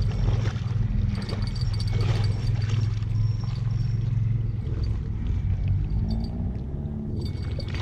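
Someone wading through shallow water in waders: irregular splashing, sloshing steps, over a steady low rumble.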